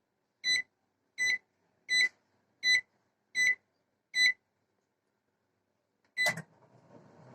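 Microwave oven keypad beeping as it is set to preheat at 180 °C: six short beeps about three-quarters of a second apart. After a pause there is one more beep with a thump, and the oven starts running with a faint steady hum.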